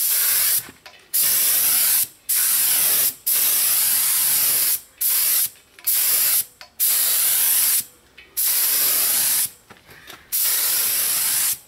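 Compressed-air paint spray gun hissing in about nine short bursts as the trigger is pulled and released, spraying paint onto wooden boards; the compressor motor is not running between bursts.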